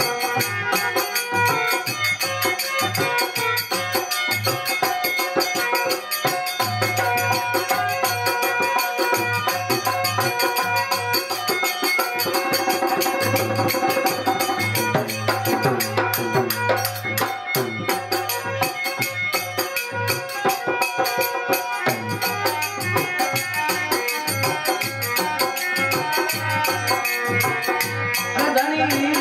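Devotional folk bhajan music: an electronic keyboard holds a melody over a steady beat of drum and jingling percussion, with the singer's voice coming back in near the end.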